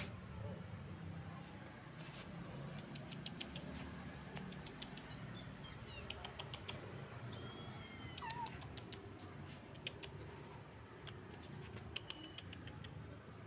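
A cat meows once about halfway through, a single call that falls in pitch, among scattered light clicks and taps.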